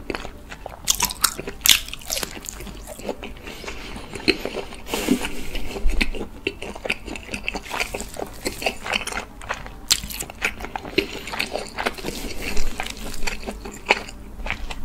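Close-miked biting and chewing of a slab of oak-smoked roasted pork belly, with many sharp crunches as the teeth go through the meat and its crust.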